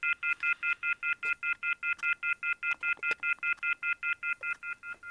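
Landline receiver off-hook alert tone from the rotary phone's handset: a loud, harsh chord of several high tones beeping rapidly on and off, about five times a second. It is the line's warning that the handset has been left off the hook.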